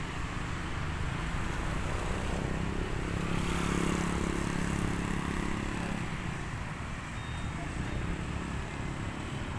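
Street traffic noise with a low rumble, as a motor vehicle's engine passes close by, swelling from about three seconds in and fading by six seconds.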